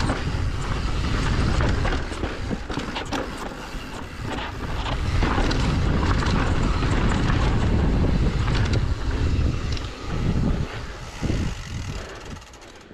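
Wind rushing over the camera microphone as a mountain bike descends a rocky dirt trail, with the tyres crunching and the bike clattering over bumps in many short knocks. It dies down near the end.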